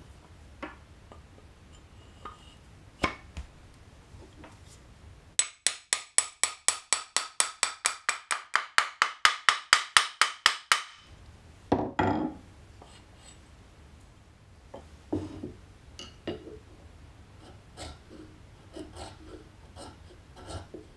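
A small hammer tapping the steel blade of a Japanese plane (kanna) to seat it in its wooden body: about thirty quick, ringing metal taps, five or six a second, over some five seconds. About a second later comes one louder, duller knock, then light clicks and scrapes of hand tools on wood.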